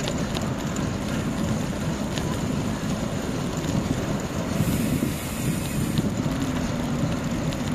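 Wind rushing over the microphone while riding a bicycle along the road, with steady rumbling road noise. A brief high hiss comes in about halfway through.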